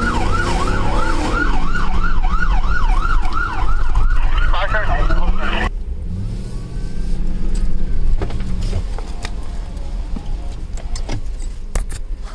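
Police car siren yelping, a fast rising-and-falling wail about three times a second, heard from inside the patrol car. It changes pattern briefly, then cuts off suddenly about five and a half seconds in, leaving the car's running noise and a few sharp clicks near the end.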